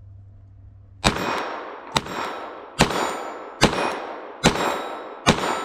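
Glock 44 .22 LR pistol firing six shots in steady succession, a little under a second apart, each followed by a metallic ringing. The string stops after the sixth shot at a malfunction with the Federal 36-grain ammunition.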